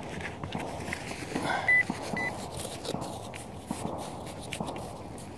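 Two short high beeps from a metal detector, close together, over light rustling and small clicks.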